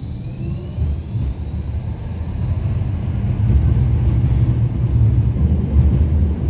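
Low vehicle rumble that grows louder about three seconds in.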